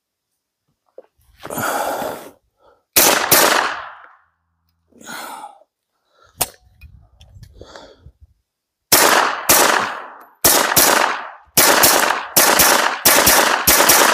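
Suppressed Glock 19 9mm pistol firing: two shots about three seconds in, then a rapid string of about eleven shots from about nine seconds in, each with a short echo.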